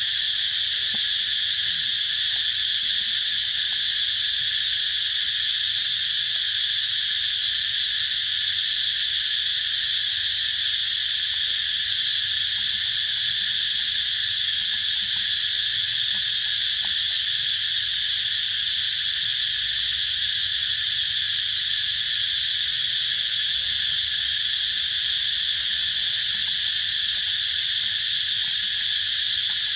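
Dense insect chorus, a loud, unbroken high-pitched drone that holds steady without pause.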